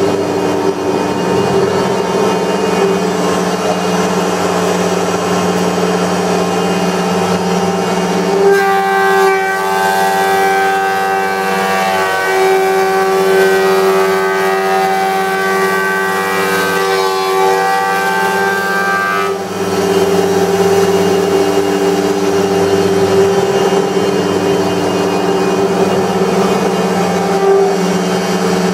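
Wood-Mizer planer running, a loud steady machine hum with several steady tones. From about 8 s to 19 s a higher, denser whine joins, then drops away.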